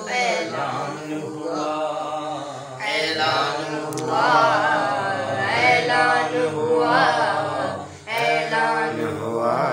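A man singing an Urdu devotional poem (manqabat) solo and unaccompanied, drawing out long wavering notes, with a brief pause for breath about eight seconds in.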